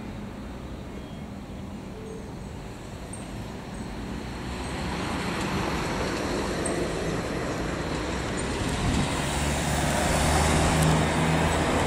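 Road traffic: a motor vehicle's tyre and engine noise grows louder from about four seconds in, with a low engine hum strongest near the end.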